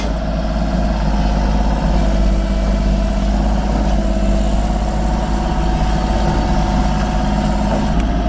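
Kubota U35-4 mini excavator's diesel engine running steadily.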